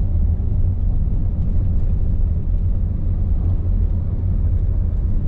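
A car driving along: a steady low rumble of road and engine noise.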